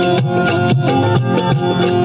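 Instrumental passage of a Hindu devotional bhajan: harmonium melody over a dholak drum and small hand cymbals (manjira) keeping a steady beat, with no singing.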